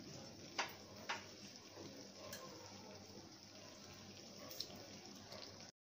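Hot sugar syrup with green mango slices bubbling faintly in a pan, a soft fizzing with a few sharp pops. It cuts off suddenly near the end.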